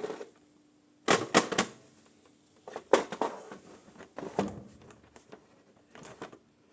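Parts of a lathe setup being handled, knocking and clattering in four short bursts of clicks and knocks a second or so apart.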